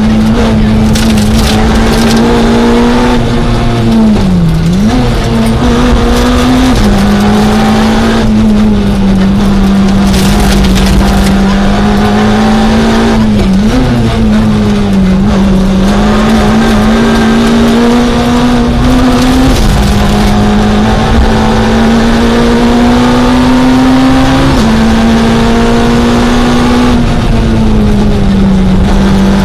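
Citroën Saxo A6 rally car's engine heard from inside the cockpit, held at high revs at full attack. The engine note dips briefly about 4 and 13 seconds in as the car lifts for bends. It drops suddenly with upshifts about 7, 19 and 24 seconds in, then climbs again.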